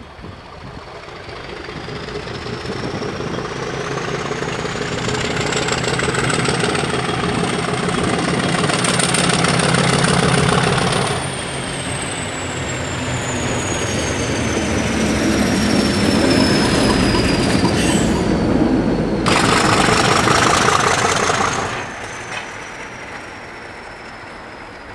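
Class 50 diesel locomotive's English Electric 16-cylinder turbocharged engine working hard as it runs past, growing louder as it approaches. A high turbocharger whine rises and then falls in pitch.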